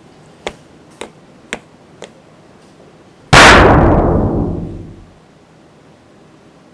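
Recorded Foley sound effects: four light knocks about half a second apart, then a sudden loud crash that dies away over about two seconds.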